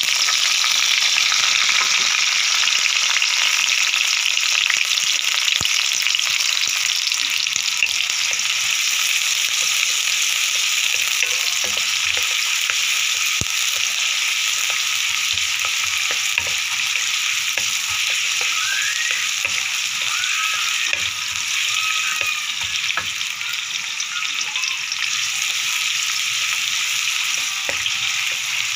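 Sliced onion and ginger sizzling steadily in hot oil in a wok, stirred with a spatula, with scattered light knocks and scrapes of the spatula against the pan.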